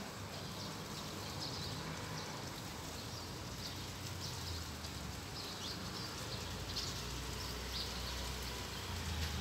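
Outdoor ambience: a steady hiss and low rumble, with short bird chirps every second or so.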